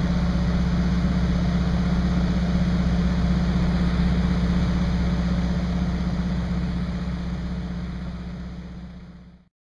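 Small plane's engine droning steadily in flight, a low hum with wind and airframe noise. It fades out over the last few seconds and cuts to silence just before the end.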